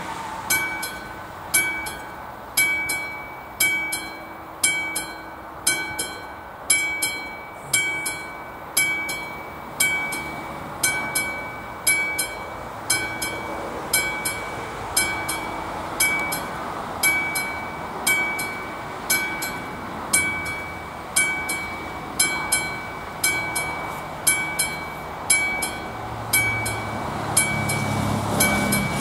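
Level-crossing warning bell of an AŽD 71 / Betamont signal, a classic mechanical bell struck about once a second, each stroke ringing on and fading: the crossing is warning that a train is approaching. A low engine rumble grows in near the end.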